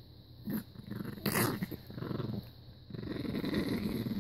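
Chihuahua pup growling and snarling in bouts while guarding a chew treat as a hand touches her, with a short sharp snarl about a second in and a louder, longer growl from about three seconds in.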